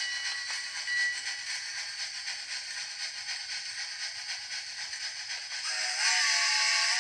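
Background music over a steady hiss; about six seconds in, a louder chord of several held tones begins and holds.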